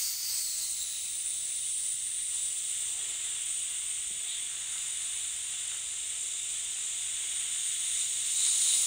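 A person breathing out slowly through pursed lips into a phone microphone: one long, steady breath hiss lasting about nine seconds, a little louder near the end.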